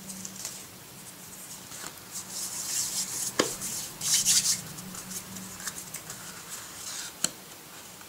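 Cardstock pieces being handled and slid against each other: irregular rustling and scraping of paper, with two sharp taps as card is set down on the table, one about midway and one near the end.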